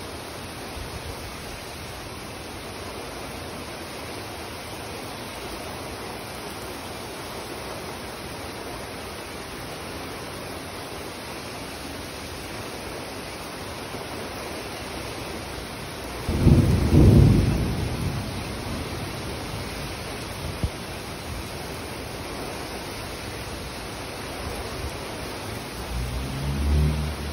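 Heavy rain pouring steadily onto pavement and puddles. A loud low rumble of thunder swells past the middle and fades over a couple of seconds, and a weaker low rumble comes near the end.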